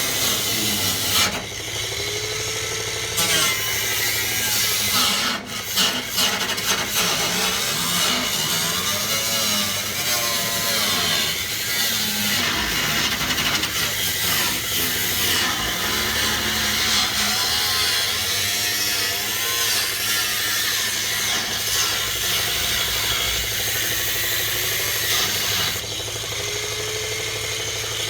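Power tool cutting into car body sheet metal, its motor pitch rising and falling as it bites, with a short change near the start and again near the end.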